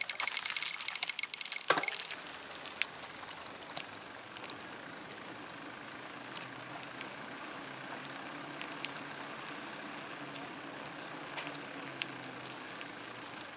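Bicycle being ridden along a trail: rapid ticking for about the first two seconds, then steady rolling noise with scattered light clicks.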